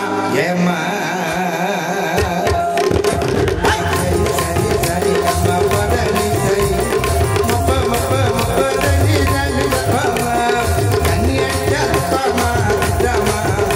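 Live light-music orchestra playing a Tamil film song: a drum-led passage with a busy, steady beat and bass, the full rhythm coming in about two and a half seconds in.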